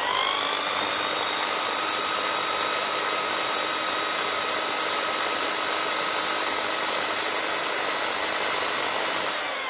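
Electric drill spinning a hone inside a brake caliper's piston bore: the motor whines up to speed at the start, runs steadily over a rough hiss of the hone scouring the bore, then winds down near the end as the trigger is let go.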